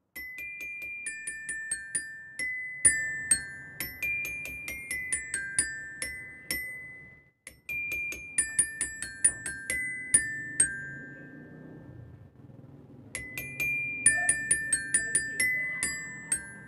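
Bell lyre (a marching-band glockenspiel) played with two mallets: a melody of quick struck metal-bar notes, each ringing briefly. The playing stops for about two seconds just past the middle, then resumes.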